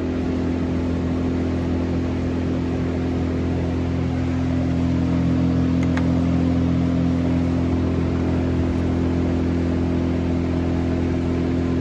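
An engine idling steadily at constant speed, with a faint click about halfway through.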